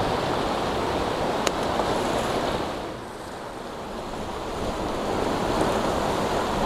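Ocean surf washing against rocks, with wind buffeting the microphone; the wash eases briefly about three seconds in.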